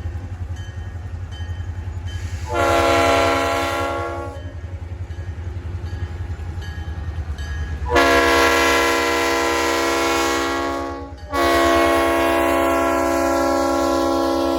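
Diesel locomotive air horn, several notes at once, sounding three blasts. The first is about two seconds long; the second is longer and starts about eight seconds in; the third follows almost at once and is still sounding at the end. Under the blasts the locomotive's diesel engine runs with a low, pulsing rumble.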